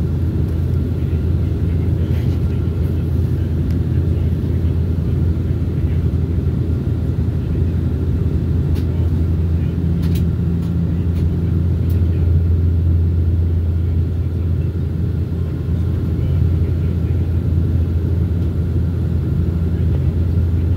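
Steady low drone of a high-wing turboprop airliner's engines and propellers, heard inside the cabin in flight, with a faint steady whine above it.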